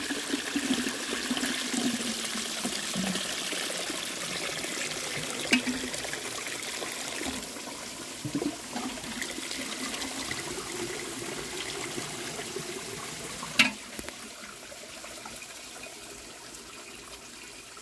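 Homemade clay toilet flushing: water rushes into the bowl and drains away, loudest at first and slowly dying down. The flow is slow, which the maker puts down to a sharp 90-degree baffle that holds the water back and weakens the siphon. Two brief sharp knocks, the louder about two-thirds of the way through.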